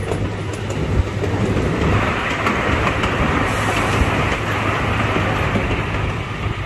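A miniature train running along its track, heard from aboard an open passenger car: a steady rumble under a constant low hum, with now and then a sharp click of the wheels on the rails. A hiss grows louder about two seconds in and stays.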